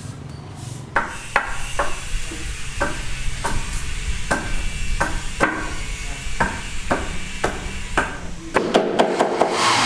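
Hammer blows struck at an even pace, about two a second, each with a short ringing tone, over a low steady hum. Near the end a louder, continuous machine noise starts.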